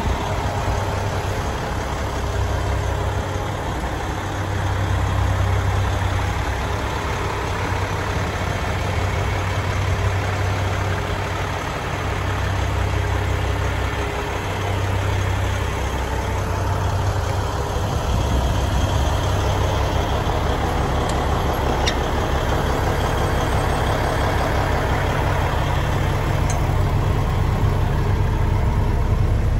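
Diesel engine of a 2014 Kenworth T660 tractor idling steadily, a continuous low hum.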